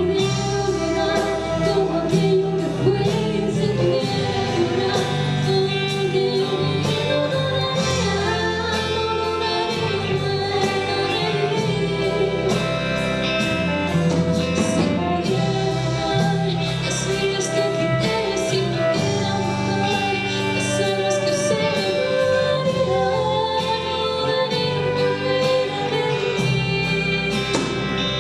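Live band playing a song with a singer and electric guitar over bass and drums.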